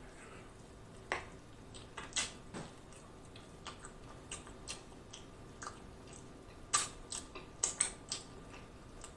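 Close-miked eating of a chicken wing: wet mouth clicks and lip smacks from chewing and biting, scattered and irregular, with a quicker run of smacks near the end.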